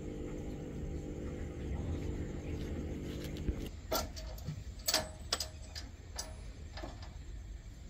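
A vehicle engine idling steadily, which stops about three and a half seconds in. Several scattered knocks and clanks follow, a few of them ringing briefly.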